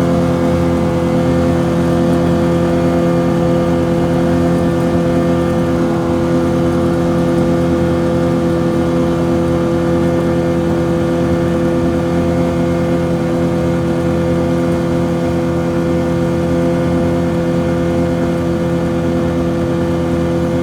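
1978 GameFisher 15 hp two-stroke outboard motor running steadily at full throttle, its pitch holding level throughout.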